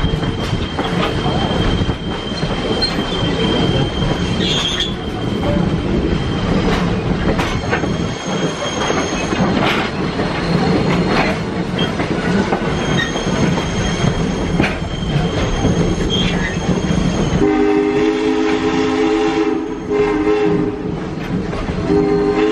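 Train running along the track, clacking over rail joints, with a thin, high wheel squeal coming and going. About seventeen seconds in, steam locomotive No. 1702's whistle blows several notes at once for about three seconds, then sounds again after a short break.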